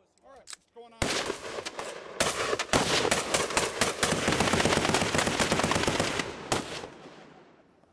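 Automatic weapons firing: scattered shots about a second in, then dense overlapping fire that stops sharply about six and a half seconds in, with the sound dying away over the next second.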